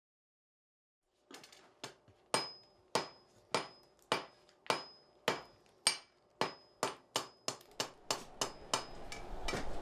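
Blacksmith's hammer striking hot iron on an anvil, each blow with a bright ring. The blows start about a second in at a steady pace of roughly two a second and quicken to a rapid patter near the end, while a hiss rises behind them.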